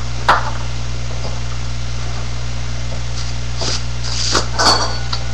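Steady electrical hum and hiss from a webcam microphone, with a click just after the start and a few short snaps and rustles of a deck of playing cards being handled between about three and five seconds in.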